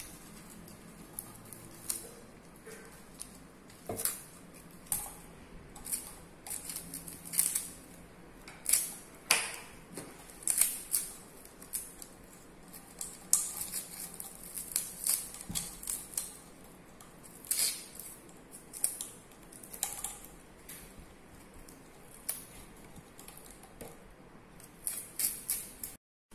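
String being unwound from around a bowl, sliding off its curved surface in many short, irregular rasping scrapes, with a few light knocks from the bowl.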